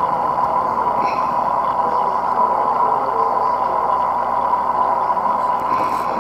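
Aquarium filter running: a steady whirring noise with a faint even tone in it, unchanging throughout.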